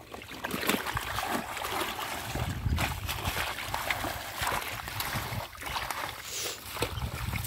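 Shallow muddy water splashing and sloshing in irregular strokes as hands grope and tear at the mud and water hyacinth roots, feeling for fish.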